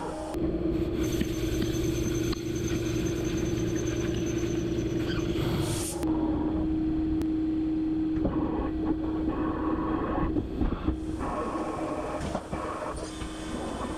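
Mazak Integrex mill-turn CNC machine running a drilling cycle, with its spindle turning and coolant spraying. A steady hum runs throughout, with a high whine for the first five seconds or so, and rougher noise later as the drill works the anvil blank.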